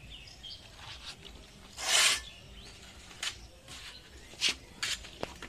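Fresh taro stalks being cut on a boti, a curved blade held upright on a stand: a louder, longer rasping stroke about two seconds in, then about four short crisp cuts.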